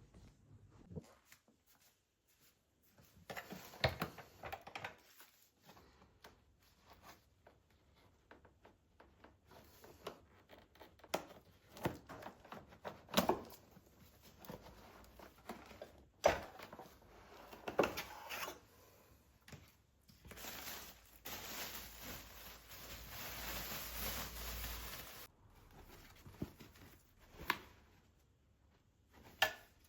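Scattered small clicks and knocks of things being handled and set down, with a steady hiss lasting about five seconds past the middle.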